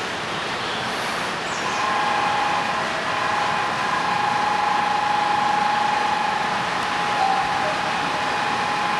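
Train running: a steady rushing noise, joined about two seconds in by a steady high-pitched electric whine.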